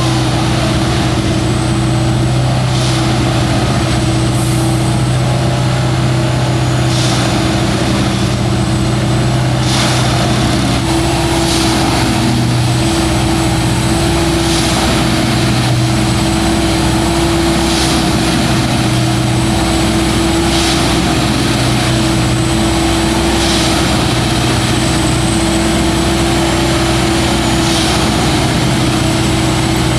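Heavy railway diesel engine running steadily with a constant low hum, with short faint high ticks recurring every two to three seconds.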